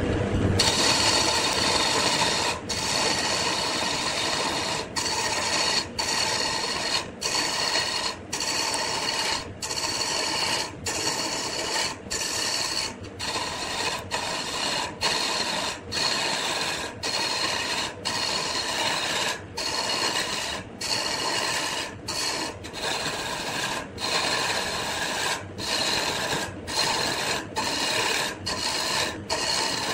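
Wood lathe running with a tool or abrasive working the spinning wood: a continuous scraping noise with steady high tones, broken by short gaps about once a second.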